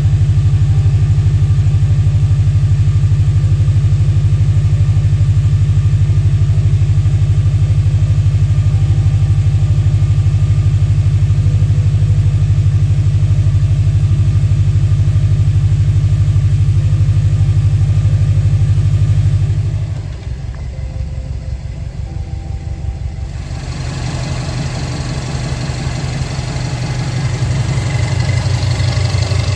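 Subaru WRX EJ25 flat-four engine, freshly rebuilt, running at a steady idle. About two-thirds of the way through, the sound suddenly drops in level and thins out, then gradually comes back up.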